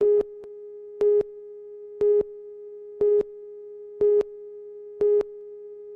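Electronic beeps: a short, loud beep once a second, six in all, over a quieter steady tone of the same pitch.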